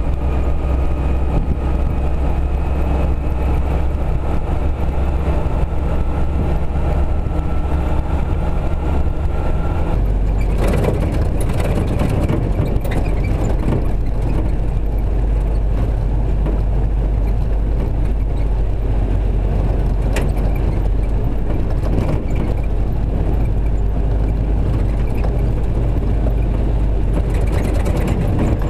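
Willys CJ-3B Jeep driving, its engine running steadily with a thin whine slowly rising in pitch. About ten seconds in, the sound changes abruptly to a rougher rumble on a dirt road, with scattered rattles and knocks.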